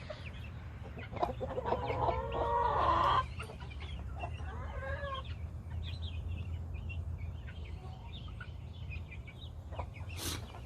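Heritage-breed chickens clucking, with one louder drawn-out call from about one to three seconds in, then scattered short clucks. A sharp click near the end.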